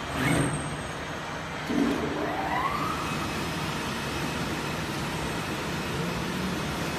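CNC knife cutting machine running, its motor whining up in pitch about two seconds in, then settling into a steady hum.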